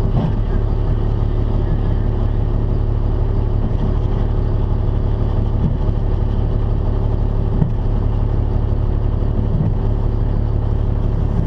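A 2000 Dodge Ram 2500's 5.9-litre 24-valve Cummins inline-six diesel running steadily at low revs, heard from inside the cab. A few faint knocks come through now and then.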